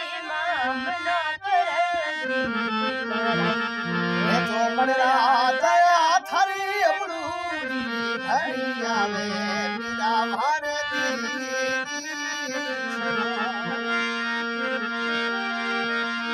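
Harmonium playing a Rajasthani folk tune, with held chords under a moving melody. A wordless voice slides and wavers between notes over it in the middle stretch.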